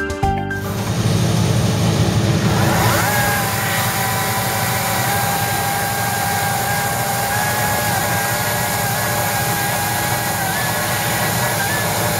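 STIHL MSA 160 C-BQ battery chainsaw's electric motor whining up to speed about three seconds in, then running at a steady pitch as the chain cuts through a log, the pitch wavering slightly under load near the end.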